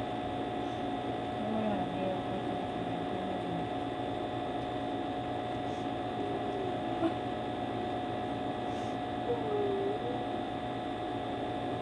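A woman crying softly, a few faint whimpering sobs, over a steady electrical hum.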